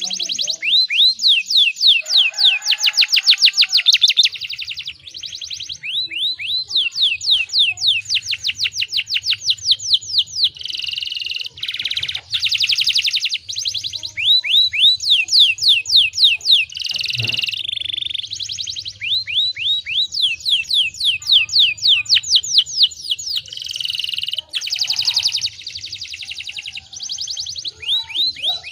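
Domestic canary singing a long unbroken song of fast trills: runs of quick, evenly repeated downward-sweeping notes, switching to a new trill every second or two. A faint low hum runs underneath from about four seconds in.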